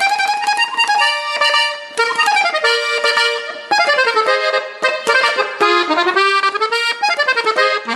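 Accordion music, loud, with quick runs of notes falling and rising.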